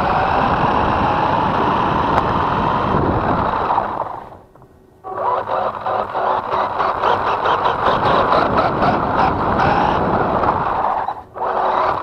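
Feiyue FY03 Eagle-3 RC truck's electric motor and gear drive whining as it drives, with tyre and chassis rattle over wet paving stones. The motor cuts out for about a second around four seconds in, then picks up again with a rapid, even clatter, and dips briefly once more near the end.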